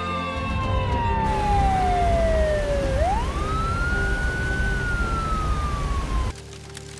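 Emergency vehicle siren wailing in slow sweeps: a long falling glide, a quick rise about three seconds in, then another slow fall, over a low rumble. It cuts off suddenly near the end.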